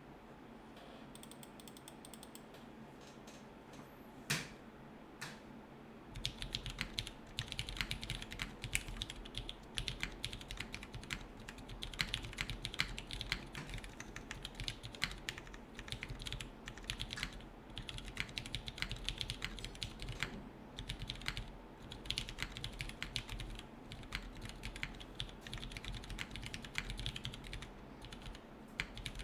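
Typing on a Kalamkorn mechanical keyboard with lubed and filmed Cherry MX Purple switches in an O-ring-mounted aluminium plate, no foam, and GMK keycaps: rapid keystroke clacks in runs with short pauses. Two single key presses come about four and five seconds in, and steady typing starts about six seconds in.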